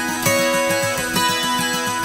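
Background music led by a plucked string instrument, like an acoustic guitar, over a quick steady pulse.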